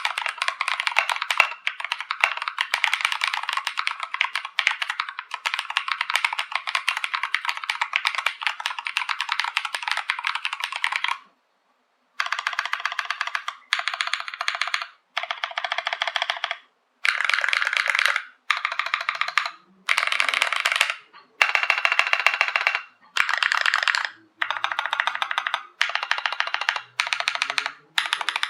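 Typing on a Novelkeys NK65 aluminium-case mechanical keyboard with lubed Durock L7 linear switches and PBT keycaps: fast keystroke clacks. The typing is continuous for about eleven seconds, stops for a second, then comes in short bursts of rapid keypresses about a second long with brief gaps between them.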